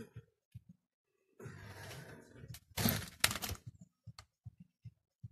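Rustling, then a short burst of clattering with a few sharp knocks near the middle, as objects are handled and moved about.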